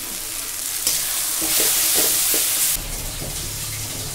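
Masala sizzling in hot oil in a steel kadai: powdered spices just added to fried onion and tomato, stirred and scraped with a steel spatula. The sizzle swells loud about a second in and eases off after about two seconds.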